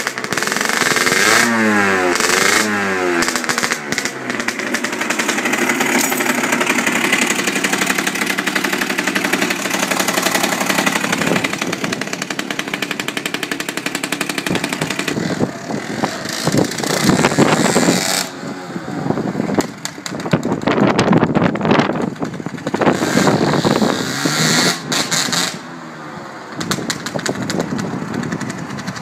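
Aprilia RS50's 50cc two-stroke single-cylinder engine running and being revved in repeated quick blips, with steadier running in between.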